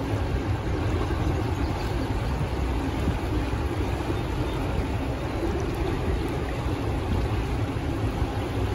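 CSX double-stack container train rolling past on the embankment, a steady rumble of the cars on the rails, mixed with the rush of a shallow creek running over rocks.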